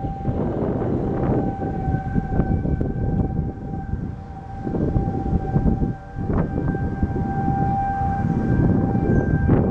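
Outdoor tornado warning siren holding one steady tone, under a heavy low rumble of wind on the microphone.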